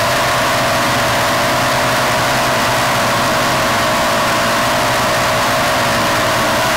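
Tarantula X6 quadcopter's motors and propellers in flight, a steady whine whose pitch holds nearly constant, heard up close through the onboard camera's microphone.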